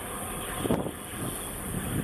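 Wind buffeting the microphone in irregular gusts, one stronger about a third of the way in, over the wash of harbour water against a breakwater.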